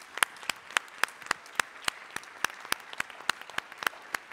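Audience applauding, with sharp, evenly spaced claps standing out at about four a second.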